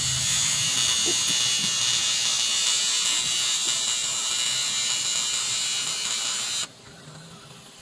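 TIG welding arc on an aluminium diesel fuel tank: a steady high buzzing hiss as a weld bead is laid with filler rod. The arc cuts off suddenly near the end.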